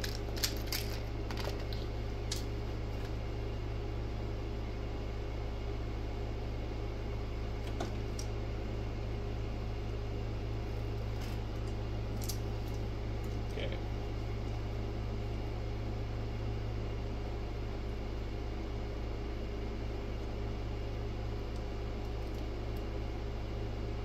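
Steady low hum and hiss of room equipment, like a running fan, with a few faint clicks and taps from a wire crimping tool and speaker wire being handled, most of them in the first couple of seconds and a few near the middle.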